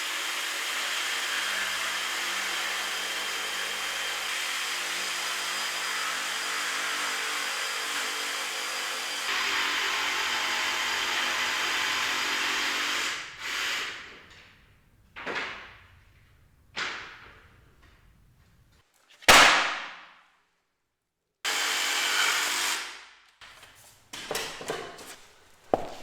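Handheld power tool running steadily for about thirteen seconds, its sound shifting slightly about nine seconds in. Then come short trigger bursts that each wind down as the motor coasts, the loudest about nineteen seconds in, another short steady run, and a few quick bursts near the end.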